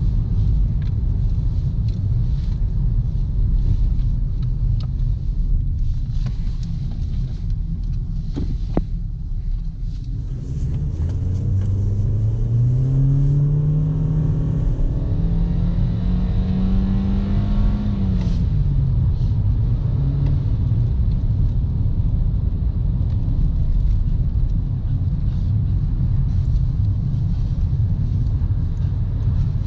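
Toyota Corolla's four-cylinder engine over a steady low rumble of road noise. About a third of the way in, the engine pitch climbs for several seconds under hard acceleration, then drops sharply as the throttle is lifted, and it settles back into the steady rumble.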